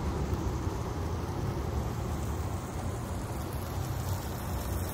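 Burgers frying: a steady sizzling hiss over a low rumble.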